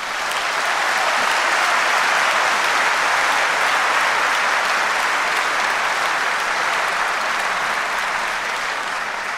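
Audience applauding: dense, steady clapping that builds over the first second and begins to fade near the end.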